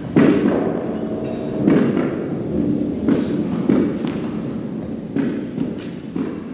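A string of irregular thumps and knocks, about eight of them with a short echo after each: performers' footsteps and wooden shepherd's staffs striking the stage floor.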